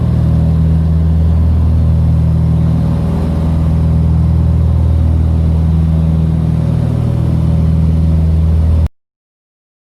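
Aircraft engine noise: a loud, steady low drone with a slow pulsing beat. It cuts off abruptly about nine seconds in.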